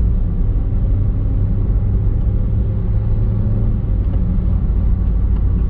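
VW Polo with a freshly rebuilt BAH four-cylinder petrol engine driving on a test drive: a steady, loud low rumble of engine and road.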